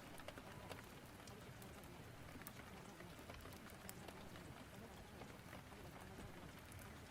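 Faint rain-storm and fireplace ambience: a steady hiss of rain with scattered sharp crackles.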